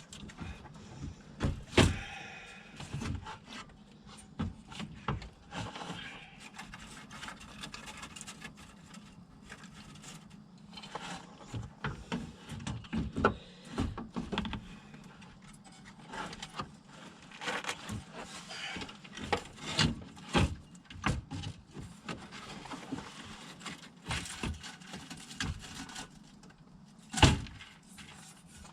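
Irregular knocks, clicks and scrapes of a car radiator, A/C condenser and their plastic brackets being handled and fitted together by hand. The loudest knocks come about 2 s in and again near the end.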